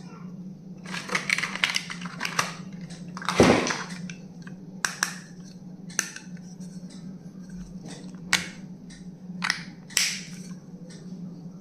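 Stationery and its packaging being handled: rustling and crinkling in the first few seconds, then a series of separate sharp clicks and taps, the loudest about three and a half seconds in. A steady low hum runs underneath.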